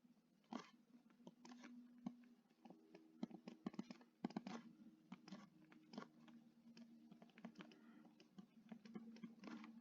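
Faint, irregular clicks and scratches of writing or drawing by hand, over a steady low hum.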